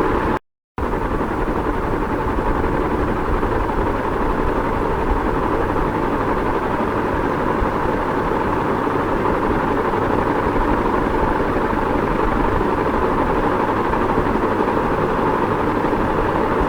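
Ceiling fan running steadily, an even airy hum with a low rumble beneath it. The sound drops out completely for a split second about half a second in.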